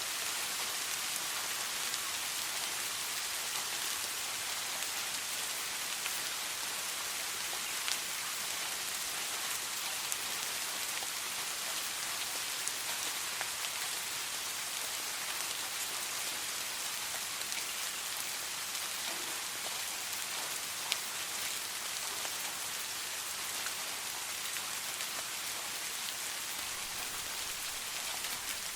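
Steady rain falling and pattering on surfaces, with a few louder single drops now and then and no thunder.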